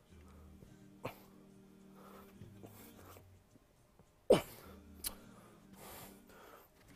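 A man's non-speech vocal sounds: a short sharp burst about a second in, then a loud strained outburst that falls steeply in pitch a little past four seconds, followed by a sharp click and a breathy exhale.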